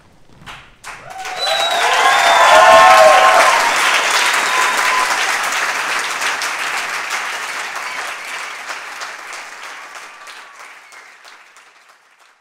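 Audience applauding, with cheers and whoops near the start. The clapping swells about a second in and slowly fades away near the end.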